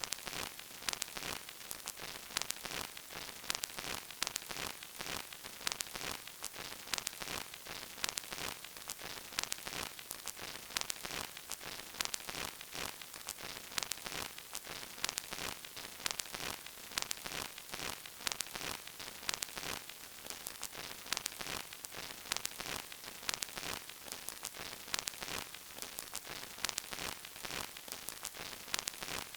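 Vinyl record surface noise: a steady crackle of many small, irregular clicks and pops over a soft hiss, as from an old, worn record.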